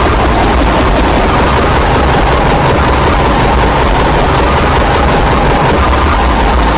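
Loud YTPMV remix audio: a dense wall of noise over low held bass notes, the bass changing pitch near the end.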